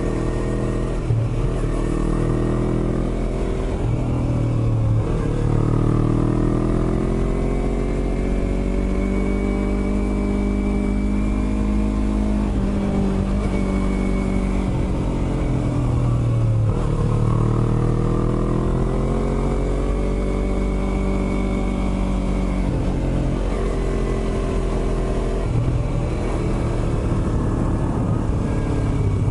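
Yamaha YZF-R25 parallel-twin engine heard from the bike while riding, the revs climbing and dropping again and again as the rider accelerates and eases off through the bends.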